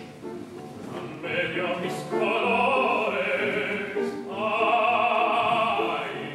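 Operatic tenor singing with grand piano accompaniment: piano alone for about the first two seconds, then two long held notes with vibrato, with a brief break between them.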